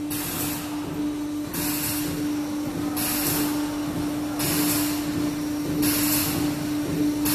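Steady hum from the hydrostatic pressure-test rig, with a hiss that grows stronger and weaker every second and a half or so.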